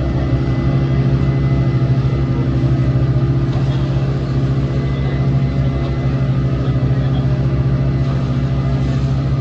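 Boat engine running steadily under way, a loud low drone with a fast, even pulse.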